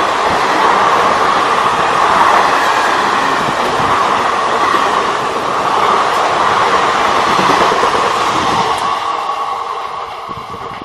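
Indian Railways express train's passenger coaches passing close by at high speed, a steady loud rush of wheels running on the rails with occasional knocks. It fades away near the end as the train recedes.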